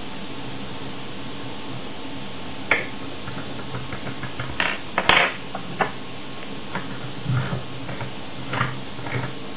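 Small metal clicks and scrapes of lockpicking tools worked in an ABUS Pfaffenhain Wavy Line euro cylinder lock clamped in a vise, starting a few seconds in, with one sharp click about five seconds in, the loudest.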